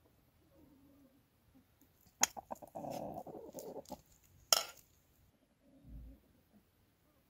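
A rooster and a hen pecking at scattered rice on bare dirt, with sharp pecking clicks and clucking, busiest in the middle. A dull thump comes near the end.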